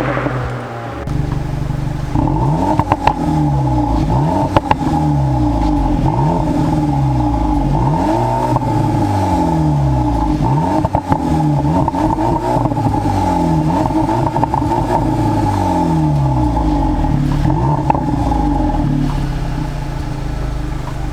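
VW Polo GTI's 2.0-litre turbocharged four-cylinder running through its stock exhaust, which has no particulate filter, its pitch swinging up and down about once a second over a steady drone.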